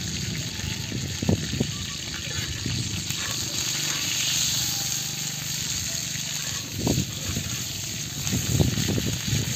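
Steady rushing of running water, with a few short, low, muffled bumps about a second in and near the end.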